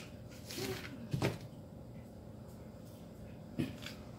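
A few light, separate clicks and knocks of hand tools being handled, one about a second in and two near the end, over a faint steady background hum.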